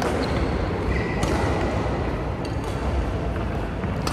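Steady low rumble of a large indoor sports hall, with a few sharp, scattered taps of badminton rackets striking shuttlecocks.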